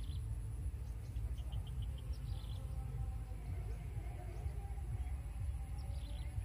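Open-air field ambience: a steady low rumble with a few faint, quick bird chirps, one short run of about five about a second in.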